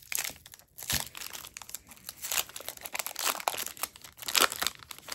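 Trading card booster pack wrapper crinkling as it is torn open and handled: irregular crackles and rustles, loudest about a second in and again near the end.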